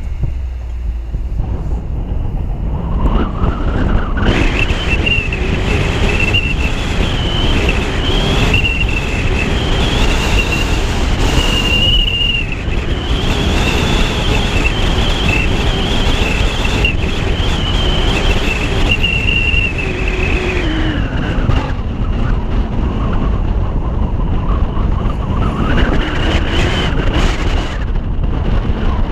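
Car driving, heard from a camera on its roof: wind rushing over the microphone and road noise. It builds about three seconds in as the car pulls away, eases around twenty seconds in and rises again near the end.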